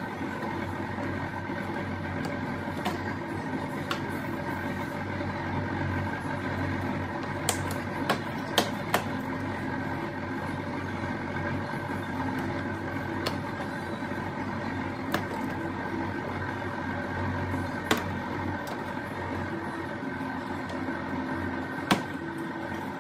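Steady machine hum made of several fixed tones, with a scattering of short sharp clicks and knocks over it.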